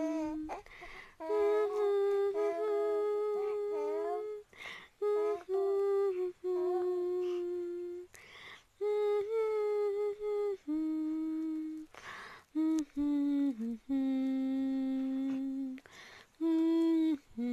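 A woman humming a slow, lullaby-like tune without words, in long held notes that step up and down in pitch, with a short breath between phrases every few seconds.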